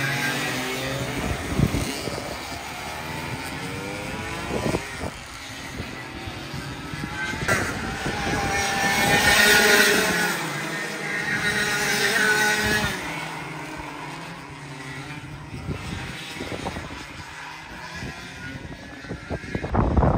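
Racing kart engines revving up and dropping off as a field of karts laps the circuit, the pitch rising and falling through the corners. One kart passes close about ten seconds in and is the loudest moment, while the others are fainter in the distance.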